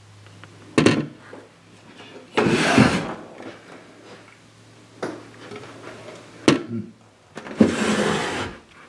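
Cabinet drawers being pulled open and pushed shut: two sharp knocks and two longer scraping slides.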